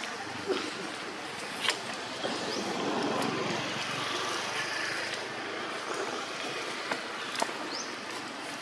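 Outdoor ambience: a steady noisy hiss that swells a little in the middle with a low rumble underneath, broken by several sharp clicks and a couple of short high chirps.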